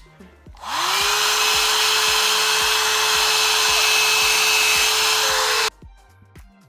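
A small electric motor spinning up to a steady pitch within about half a second, running steadily with a hiss for about five seconds, then switching off abruptly.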